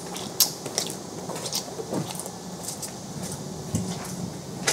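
Footsteps on wet concrete, shoes squeaking and scuffing in a string of short, irregular squeaks over a faint steady hum.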